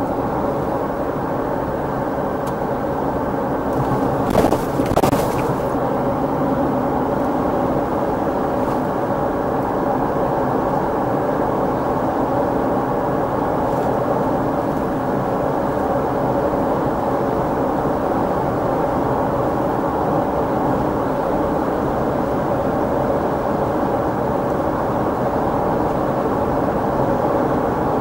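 Steady road and engine noise inside a vehicle's cabin while driving at highway speed, muffled, with a couple of brief knocks about four to five seconds in.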